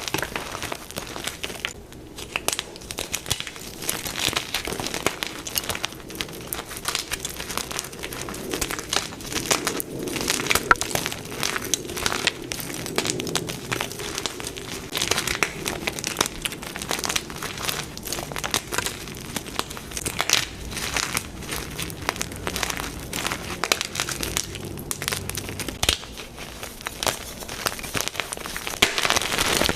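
Blocks of plain gym chalk being crushed and crumbled, a continuous dense crunching and crackling of many small breaks.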